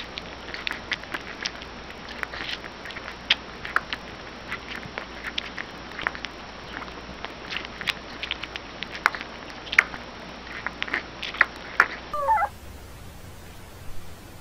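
Newborn puppy suckling from a baby bottle, with quick irregular wet sucking clicks and small squeaks. Near the end comes one short wavering squeal from another newborn puppy.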